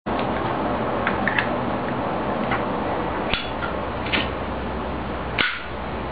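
A lighter being handled: a series of short, sharp clicks and snaps, with the loudest about five seconds in, over a steady hiss.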